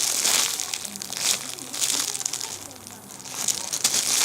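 Crinkling and rustling of plastic packaging being handled, in several irregular swells, around a jumbo strawberry squishy.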